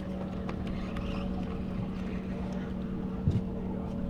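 Steady motor hum on a fishing boat, one even tone throughout, with a single knock about three seconds in.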